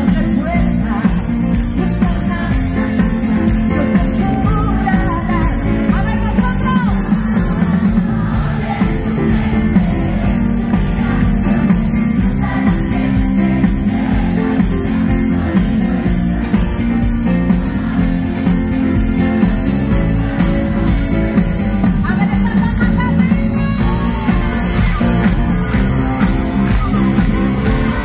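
Live pop-rock band playing loudly, recorded from the audience: heavy bass and drums with electric guitar, and a woman's singing voice coming in at times.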